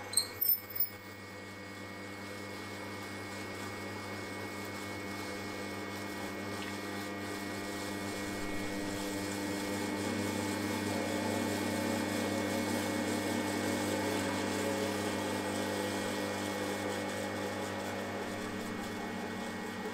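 Milling machine running with a long drill boring down through a pair of stacked bearing blocks, with a few brief high squeaks as it first bites. The cutting noise grows louder midway as the drill passes through the top block, then eases near the end.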